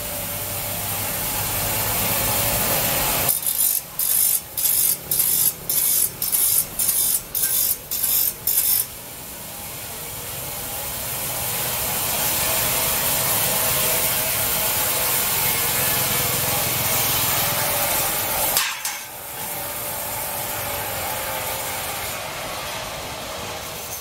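Bench grinder wheel grinding the teeth of a steel bandsaw blade: a steady, hissing grind over the grinder's motor hum, broken for several seconds in the middle into short strokes about two a second, tooth by tooth, then steady again with one brief break near the end.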